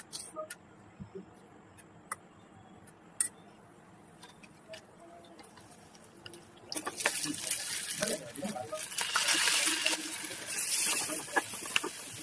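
Kitchen cooking sounds: a few light clinks of utensils, then about seven seconds in a loud hiss with clattering that lasts to the end.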